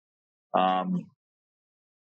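A man's brief wordless vocal sound, a held vowel at a steady pitch lasting about half a second, about half a second in; otherwise silence.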